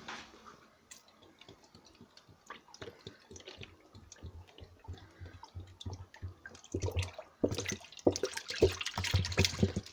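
Liquid disinfectant glugging out of a bottle into a washing machine drum. There are faint gurgles and clicks at first, then from about seven seconds in the pour turns loud and fast, gulping rapidly as the bottle empties.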